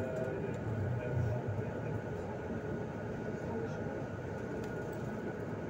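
Steady rumble of a slowly moving vehicle heard from inside its cabin, with a faint steady hum and indistinct voices in the background.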